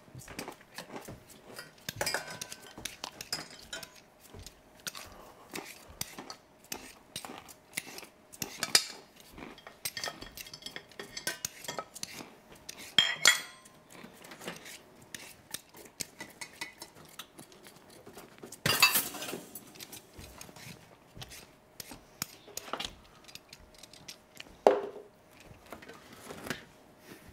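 Kitchen clatter: dishes, pans and cutlery knocking and clinking at irregular intervals, with a few louder clanks scattered through it, during vegetable prep and washing up.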